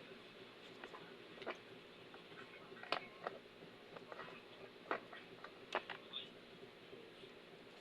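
Faint, scattered light clicks and taps of small parts and hand tools being handled, about six at uneven intervals, the sharpest about three and five seconds in.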